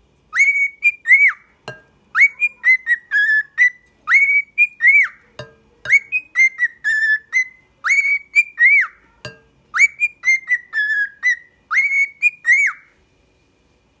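Cockatiel whistling a short tune of clear notes, repeating the same phrase four times, with a soft tap between repeats.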